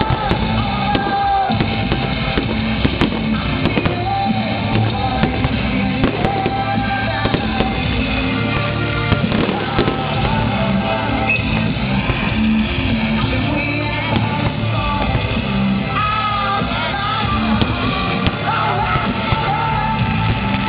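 Rock music with singing, loud and continuous, with firework bangs and crackles breaking through now and then.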